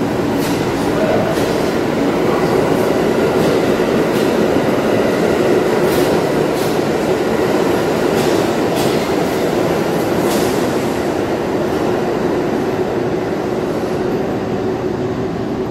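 New York City subway C train running through an underground station, heard from inside the car: a steady rumble of wheels and motors with a faint steady whine. Several sharp clicks come through at uneven intervals.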